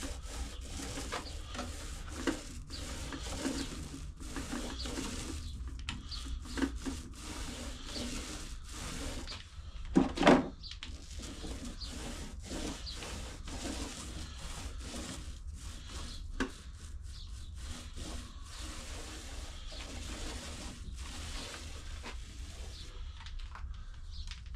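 Foam roller rubbing across a wooden model boat hull as finishing epoxy is rolled on, in soft, uneven strokes. A sharp double knock about ten seconds in.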